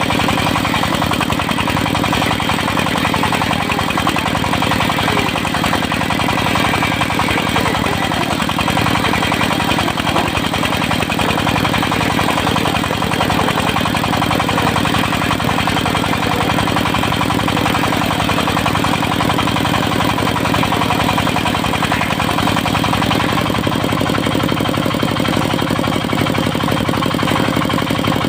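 Diesel engine of a portable circular sawmill running steadily at an even speed.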